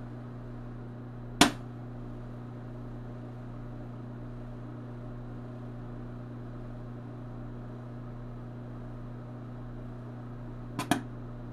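An overvolted capacitor bursting with a sharp crack about a second and a half in, then a quick double pop near the end as it vents smoke and sparks. A steady mains hum sits under both.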